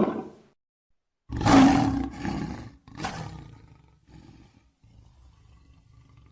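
Lion roaring: the tail of one roar, then a loud roar about a second in and a shorter second one, followed by quieter calls that fade away.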